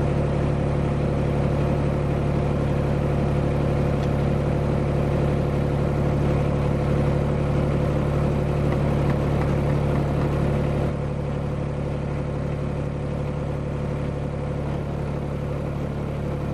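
Compact tractor engine idling steadily, heard close from the operator's seat; the hum drops a little in level about eleven seconds in.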